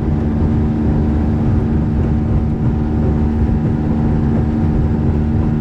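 Small metal fishing boat under way: its motor runs at a steady pitch over a loud rush of water and wind.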